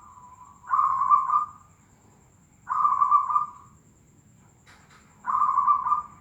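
Zebra dove (perkutut) cooing: three loud phrases of its rolling coo, each under a second long and about two seconds apart, after a fainter coo at the start. A short click falls between the second and third phrases.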